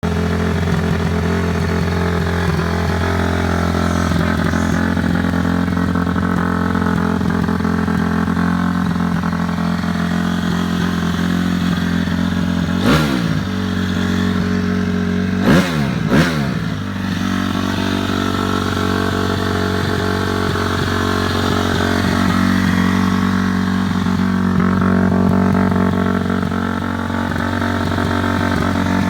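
2006 Honda CRF250 dirt bike's single-cylinder four-stroke engine idling steadily, blipped three times: one quick rev about halfway in and two more in quick succession a couple of seconds later, settling back to an even idle each time. It starts, runs and idles well.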